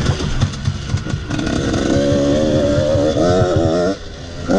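Husqvarna WRE 125's two-stroke single-cylinder engine running while riding on a dirt track. About two seconds in the engine note climbs and wavers as it pulls, then eases off shortly before the end, with a brief rev near the end.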